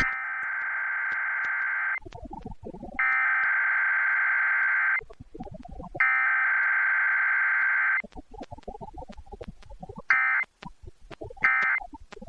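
Emergency Alert System SAME header data bursts sent over a radio station for a Required Weekly Test. There are three harsh digital warbling bursts of about two seconds each, roughly a second apart, with garbled sound in between. Near the end come three much shorter bursts, the end-of-message code.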